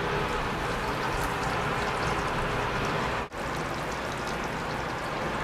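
Coconut-and-breadcrumb-coated chicken pieces frying in hot oil in a pan: a steady sizzle with fine crackles. It drops out for a moment about three seconds in, then goes on.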